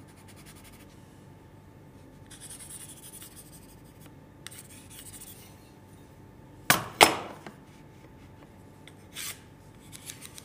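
Pencil scribbling zigzag hatching onto a pine board, a dry scratching in short spells, marking the waste to be cut out. About seven seconds in come two sharp knocks in quick succession, the loudest sounds, then a lighter click.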